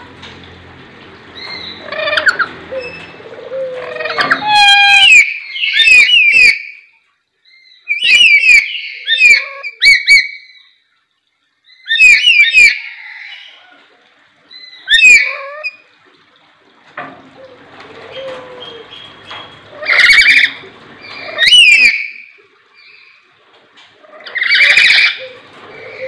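Caged lories giving loud, shrill calls in short bouts, about seven of them a few seconds apart.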